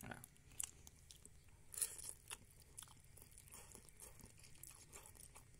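A person chewing a mouthful of instant fried noodles: faint, soft chewing with small scattered clicks and a slightly louder smack about two seconds in.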